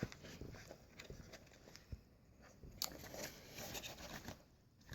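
Faint handling noise: a few small clicks and light rustling of the phone's box and accessory packaging being handled.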